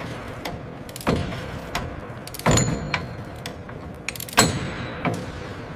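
Metal parts and tools clanking and knocking during assembly work, with three sharper hits about a second, two and a half seconds and four and a half seconds in. Two of the hits ring briefly, over a steady background hum.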